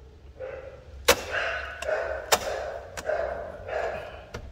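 Sharp metallic clicks and knocks, about five of them, as aluminium busbars are shifted and seated on the terminal studs of a lithium cell bank. A rough, continuous scraping sound runs between the clicks.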